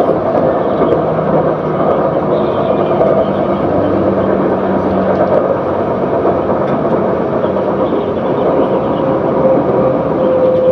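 Interior running noise of a CAF Urbos 3 light rail tram travelling along its track: a steady rumble with a whining tone that grows stronger near the end.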